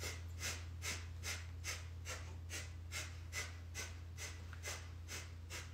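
Kundalini yoga breath of fire: rapid, rhythmic forced exhales through the nose, about two to three a second, driven by pumping the navel. A steady low hum runs underneath.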